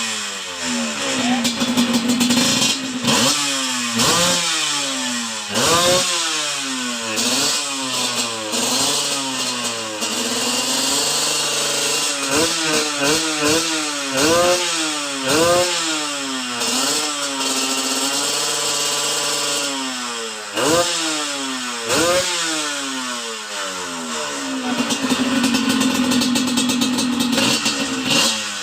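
Kawasaki Ninja 150 two-stroke single-cylinder engine in a Honda CRF dirt bike, blipped again and again from idle: over a dozen quick revs that rise and fall back, one rev held steady for a couple of seconds around the middle, and idling near the start and end.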